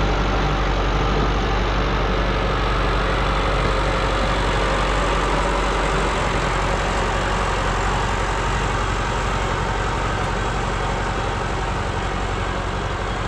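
An engine running steadily: a low even hum under a dense steady hiss.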